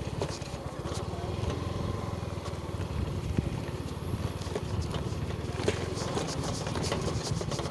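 Small motorcycle engine running steadily while riding, with a few short knocks.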